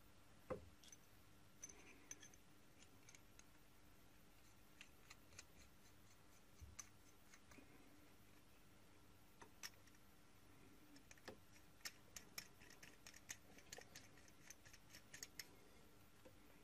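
Faint small clicks and taps of brass pen parts being handled and fitted together, with a run of quick ticks in the second half.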